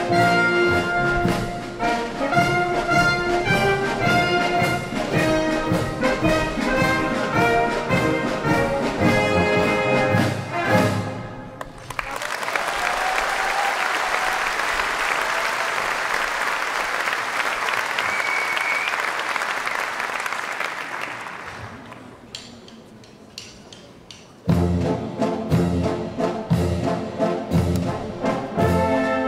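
Brass band of trumpets, trombones, tubas and drums playing with a steady beat, breaking off about twelve seconds in. Audience applause follows and fades out, and the band strikes up again near the end.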